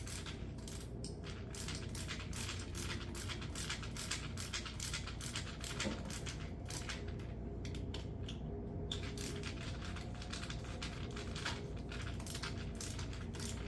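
Screwdriver tightening screws down into plastic wall anchors: a steady run of small metallic clicks, about three to four a second.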